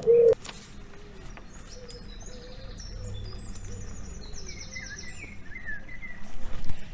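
A dove's coo ends a moment in, followed by small birds chirping and twittering softly: a birdsong sound effect.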